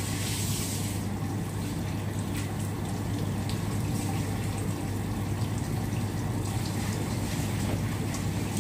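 Water running steadily from a hose, with a steady low hum underneath.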